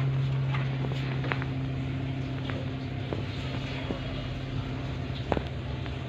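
A steady, low, even-pitched hum of a running motor or engine. A few short sharp clicks fall over it, one of them louder about five seconds in.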